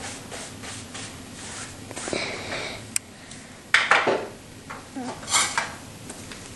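Painting tools being handled at a wooden easel: faint scraping strokes, then a sharp click about three seconds in and clattering knocks, the loudest just under four seconds in and another about five and a half seconds in.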